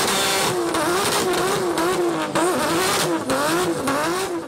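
Acura NSX V6 engine revved through its exhaust in quick throttle blips, the pitch rising and falling about twice a second.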